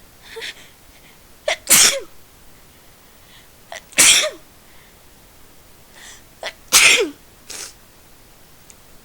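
A person sneezing three times in a row, about two and a half seconds apart, in the middle of a long sneezing fit. Each sneeze has a short sharp sound just before it.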